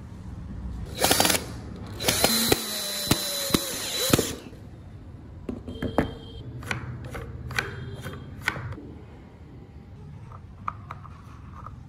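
A cordless drill runs in a short burst about a second in, then steadily for about two seconds. After it come scattered light knocks and clicks of small wooden parts being handled and fitted together.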